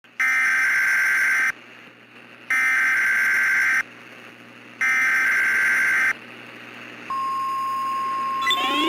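Emergency Alert System SAME header: three identical bursts of screeching digital data tones, each about a second and a quarter long with about a second between them. They mark the start of a new warning. About seven seconds in, the steady 1050 Hz NOAA Weather Radio warning alarm tone begins, and rising sweeping tones join it near the end.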